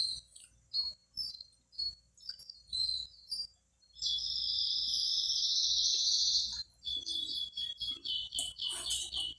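A small dog whining and whimpering to beg for food at the table. Short high whimpers come first, then one long high whine about four seconds in, then a quick run of repeated whimpers.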